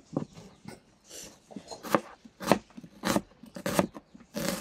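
Knife chopping food on a cutting board: a run of sharp cuts, irregular at first, then settling into a steady rhythm of about one cut every half second.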